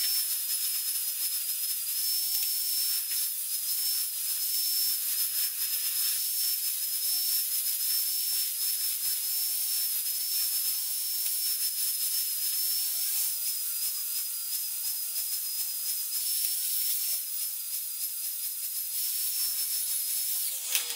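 A grinder cutting a bevel into a cast-iron part, preparing the crack for welding: a steady high whine over a rasping hiss, wavering slightly as the load changes.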